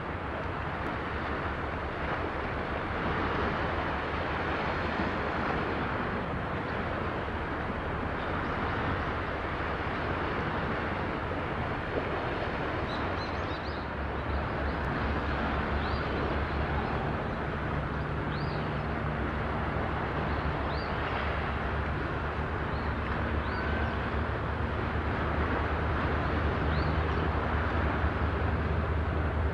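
Steady outdoor ambience by the water: a constant rush of noise with a low hum beneath it that grows fuller about halfway through. A few short high chirps come in the second half.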